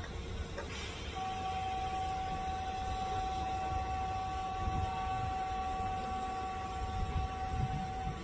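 A steady high-pitched tone begins about a second in and is held unchanged for about seven seconds, then cuts off just before the end, over a low rumble. A brief click comes just before the tone starts.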